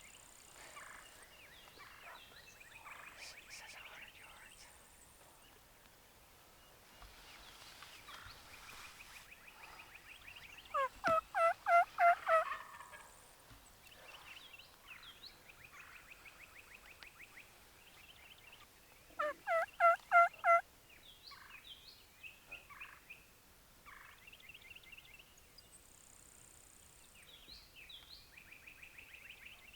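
Wild turkey tom gobbling twice, the first about eleven seconds in and the second about eight seconds later, each a quick run of rapid pulses. Faint songbird trills and chirps go on in between.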